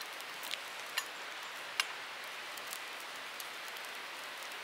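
A bun frying in butter in a small iron frying pan over a gas camping stove: a steady sizzling hiss, with three sharp crackles in the first two seconds.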